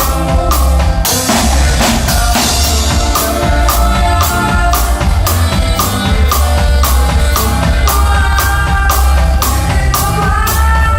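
Conjunto band playing live at a sound check: a drum kit keeps a steady, quick beat under held melody notes.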